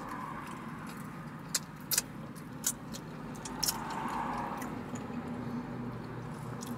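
Close-up chewing of a crispy fried chicken sandwich: a handful of sharp crunching clicks from the mouth over a steady low hum.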